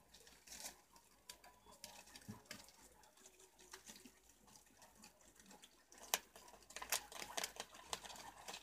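Faint scattered clicks and rustles of preás (wild cavies) moving and feeding among leaves, coming thicker and louder about six seconds in.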